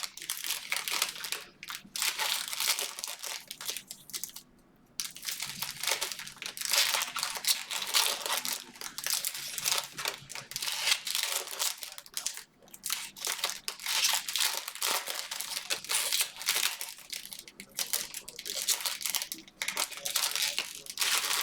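Plastic card-pack wrappers crinkling and tearing as they are handled, an irregular rustle with a short pause about four seconds in.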